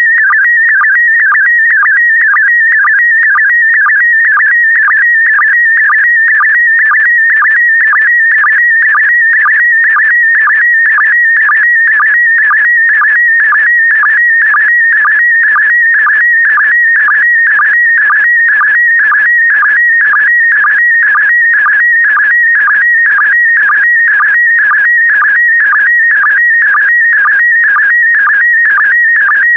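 Slow-scan TV (SSTV) signal in PD120 mode: a fast-warbling high tone broken by a short lower blip about twice a second, each blip a sync pulse starting the next pair of picture lines as a photograph is sent line by line.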